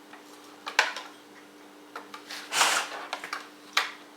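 Plastic dishwasher handle parts being handled and fitted: a sharp click about a second in, a scraping rustle near the middle, and another sharp click near the end, over a faint steady hum.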